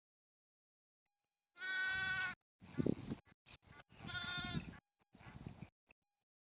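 Bleating from a herd of sheep and goats: two long, loud bleats about two and four seconds in, with shorter calls between and after.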